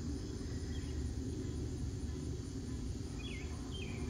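Evening outdoor chorus of insects and frogs: a steady high insect drone, with two short, falling chirping frog calls near the end, over a steady low background rumble.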